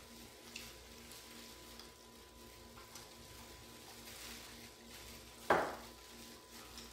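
Quiet eating at a table: faint rustles and small clicks of plastic-gloved hands handling pork trotters over a steady low hum, with one short, louder sound about five and a half seconds in.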